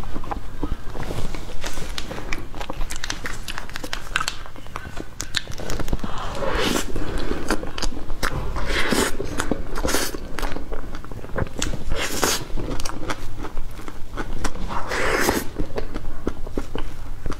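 Close-miked mouth sounds of eating soft whipped-cream cake: wet chewing and lip smacking with many small clicks, and a few louder bursts of mouth noise spaced a few seconds apart.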